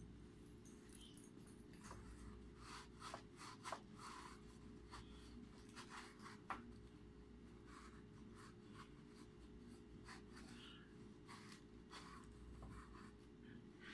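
Faint rustling, scraping and light clicking as hands handle strings of LED modules and their wires on plastic sign letter pieces, with two sharper clicks at about four and six and a half seconds.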